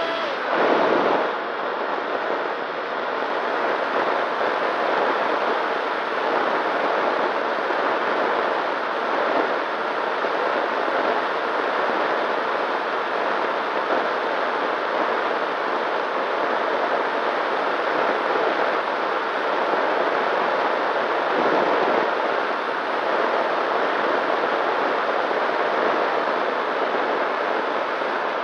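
Steady rushing of airflow over the onboard camera microphone of a Nano Talon, a small electric FPV plane, with the faint steady hum of its motor and propeller underneath. A brief louder swell comes about a second in.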